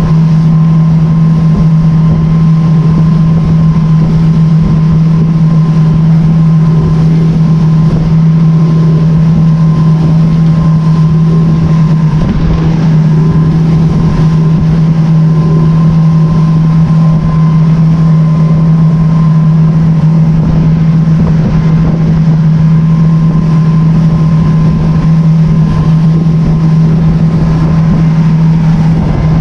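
Boat motor running at a steady, unchanging pitch, with wind rumbling on the microphone.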